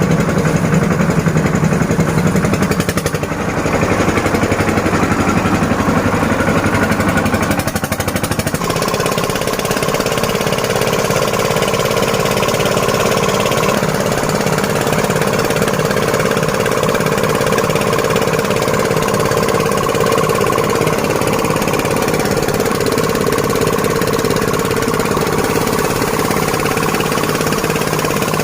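Flour-milling machine for corn and other dry materials running steadily with a fast rattle; about eight seconds in its pitch shifts and it settles into a steadier hum.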